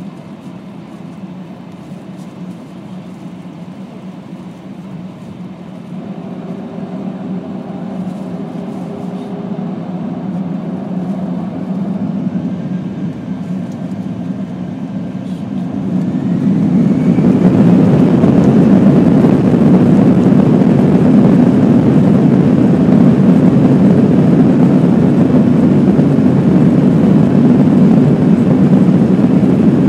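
Boeing airliner's jet engines heard from inside the cabin: a steady hum that builds a little, then spools up with a rising whine about halfway through into a loud, steady rushing noise of takeoff thrust as the takeoff roll begins.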